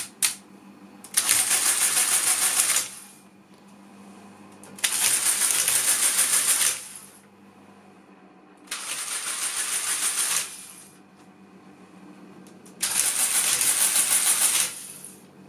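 Lagomarsino Numeria 8723 electro-mechanical calculator running with its side cover off: four separate runs of dense mechanical rattling, each under two seconds long, as its electric motor drives the mechanism through a calculation cycle. A faint steady hum fills the gaps between runs.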